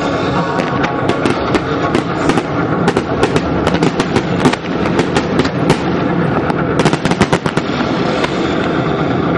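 Fireworks display: a rapid string of sharp bangs from bursting shells over a continuous crackle, several reports a second, easing off briefly about two-thirds of the way in.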